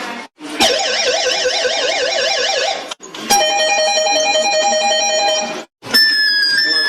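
Electronic shooting sound effects of a knockoff kiddie ride, played pitched down: a warbling tone that wobbles up and down about four times a second, then a steady electronic tone, then a tone stepping down in pitch, each set apart by a brief gap.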